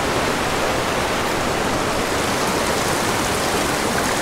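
Small mountain creek rushing and tumbling over rocks: a steady, even wash of water.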